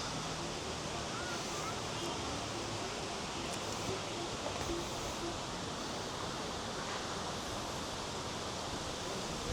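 Steady outdoor background hiss, even and unchanging, with a few faint distant voices.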